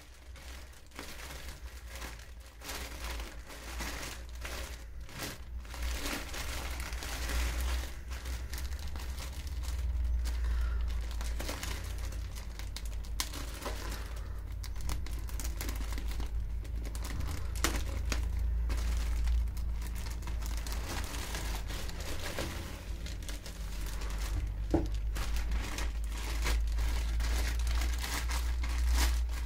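Clear plastic polybag crinkling and crackling as hands grip, crumple and open it around a folded jacket. It gets louder over the first few seconds and then keeps up a continuous crinkle over a steady low hum.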